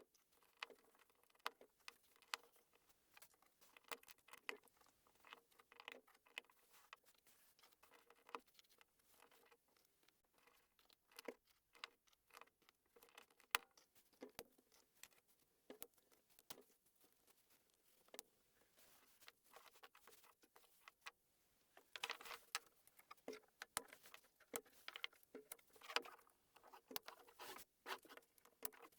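Plastic LEGO pieces clicking and tapping as they are handled and pressed together, a quick irregular run of small clicks that grows busier and more rustly in the last several seconds.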